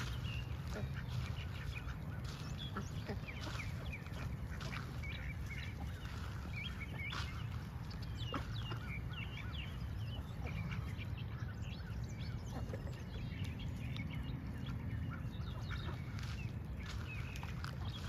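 Ducks calling: many short, scattered calls over a steady low rumble.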